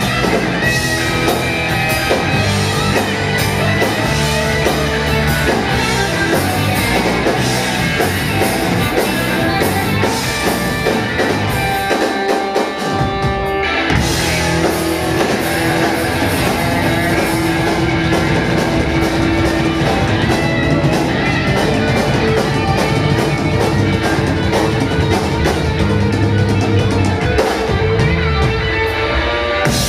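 Live rock band playing: electric guitars, bass guitar and drum kit. About twelve seconds in, the bass and drums drop out for about a second and a half, then the full band comes back in.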